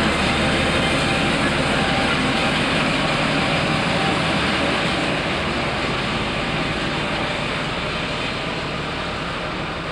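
British Rail Class 08 diesel shunter with its English Electric six-cylinder engine running, a steady low diesel rumble under a broad hiss, easing off slightly toward the end.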